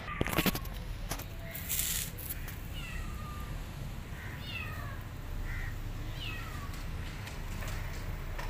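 Cat meowing: about six short meows, each falling in pitch, from about two and a half seconds in. A couple of sharp knocks and a brief rustle come first.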